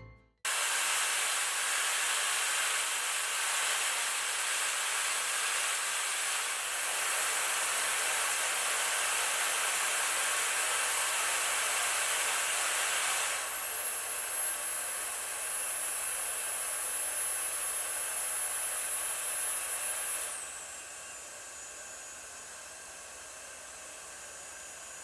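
Sharp Plasmacluster Drape Flow IB-WX901 hair dryer blowing steadily. About halfway a thin high motor whine comes in. Near the end the dryer drops to a quieter setting and the whine falls in pitch.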